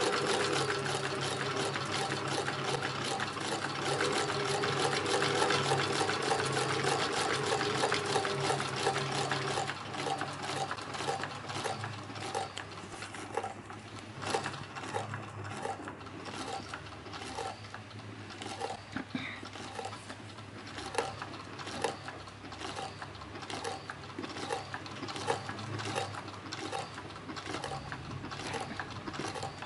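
Cylinder-bed industrial sewing machine stitching through leather on a handbag's top edge. It runs steadily with a motor hum for about the first ten seconds, then slows to single stitches, each a sharp click, roughly one or two a second, as the seam is eased around the bag.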